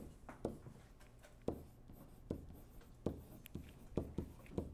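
A stylus writing on a tablet screen: faint, irregular taps and short scratchy strokes as letters are drawn one after another.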